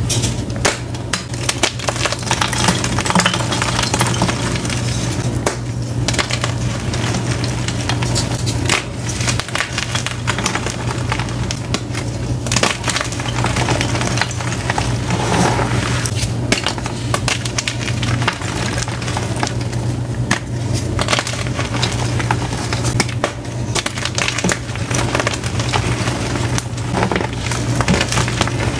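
Dyed gym chalk blocks being crushed by hand: a dense, continuous crunching and crackling as the blocks break into chunks and powder. A low steady hum runs underneath.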